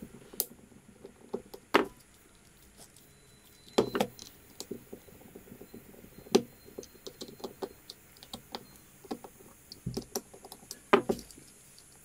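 Small clicks and knocks as a screwdriver works screws into the plastic frame of a ZTE MF910 pocket WiFi modem and fingers handle the case. The sounds are irregular, with about half a dozen sharper knocks among quieter ticks.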